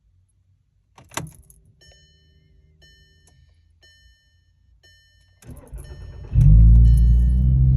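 A Volkswagen Golf: a click, then a chime dinging about once a second; about five and a half seconds in the starter cranks briefly and the engine catches and runs loudly.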